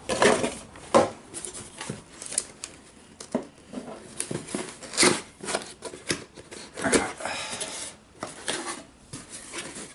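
A cardboard toy box being opened and its packaging handled: irregular rustles, scrapes and taps, with a few sharper strokes about one, five and seven seconds in.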